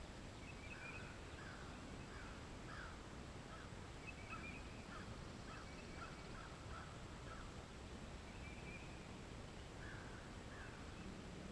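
Birds singing outdoors: a run of short, quickly repeated notes, with a brief higher trill every few seconds, over a steady low background hiss.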